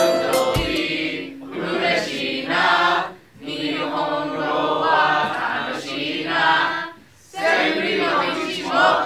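A group of students singing a song together in Japanese, voices only, in phrases broken by two short pauses about three and seven seconds in.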